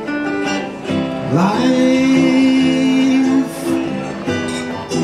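Man singing with an acoustic guitar; about a second in, his voice slides up into a long held note over the guitar.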